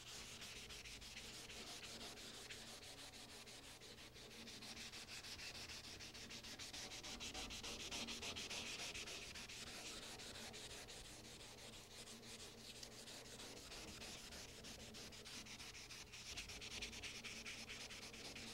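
Hand wet-sanding of the painted cabinet of a 1944 Delta Unisaw with 400-grit paper and soapy water: faint, quick back-and-forth rubbing strokes, a little louder around the middle and near the end.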